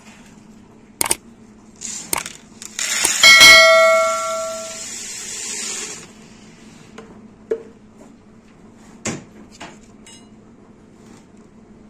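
Subscribe-button sound effect: clicks about a second and two seconds in, then a notification bell dings once about three seconds in and rings out over a hissing rush that stops suddenly near six seconds. A few lighter clicks and knocks come later.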